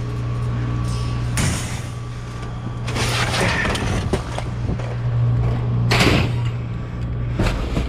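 Dumpster debris being shifted by hand: a length of pipe and boards dragged and pushed among trash bags, giving several bursts of scraping and rustling. A steady low hum runs underneath.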